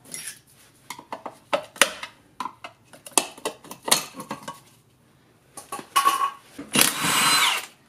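A screwdriver prying a plastic wheel cover off a golf-cart wheel: scattered clicks and light metallic taps over the first few seconds, a few more clicks after a short pause. Near the end, a short burst, under a second, from a cordless impact wrench on the lug nuts.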